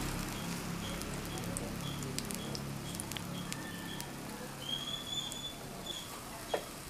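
Egg-and-milk-soaked bread frying in ghee on a nonstick pan: a soft sizzle with scattered pops and crackles.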